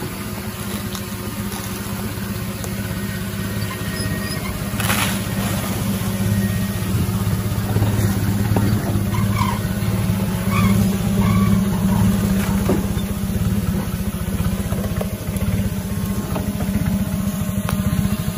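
Engine of an old, open-topped Suzuki Jimny off-roader running steadily.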